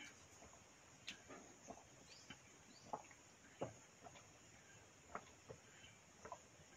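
Faint gulping and slurping from steel bowls of watery fermented rice (basi pakhala) being drunk, a short soft sound every half second to a second, over a faint steady high hiss.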